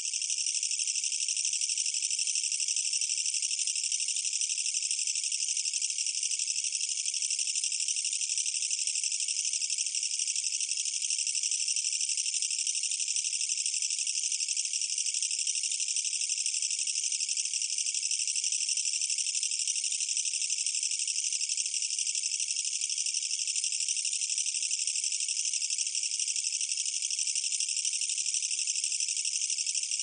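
Male Mecopoda niponensis katydid (철써기) singing: a continuous, dense, high-pitched rattling trill that holds at an even level without a break.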